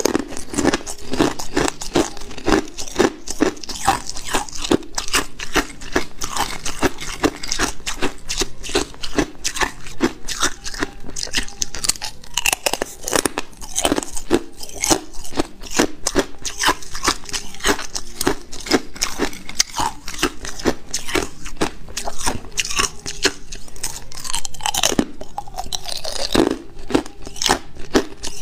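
Chunks of ice being bitten and chewed in the mouth: a dense, continuous run of sharp, rapid crunches.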